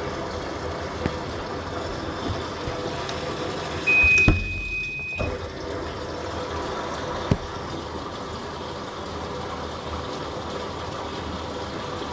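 Living & Co 5.5 kg top-load washing machine running with steady water noise. About four seconds in there is a knock, and the control panel gives one steady high beep of about a second and a half while the running noise briefly drops out. Small clicks come about a second in and again near seven seconds.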